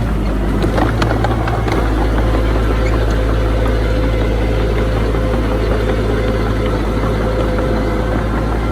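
Diesel engine of earthmoving machinery, a dump truck or mini bulldozer at work, running steadily with a deep low hum, with a few short clicks and knocks about a second in.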